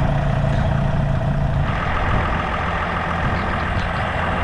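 Flatbed tow truck's engine running as it loads a van onto its tilted bed, with a steady whine joining in about two seconds in.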